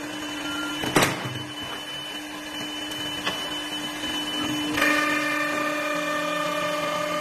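CA 1530 CNC wood lathe running with a steady motor hum as its tool carriage traverses the bed. A sharp clack about a second in is the loudest sound, a fainter click follows about 3 s in, and at about 5 s a higher whine joins and stays.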